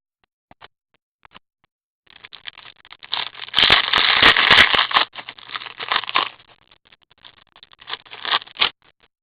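Crinkling and crackling of a hockey card pack's wrapper being torn open and handled, starting about two seconds in, loudest in the middle, with a last short flurry near the end.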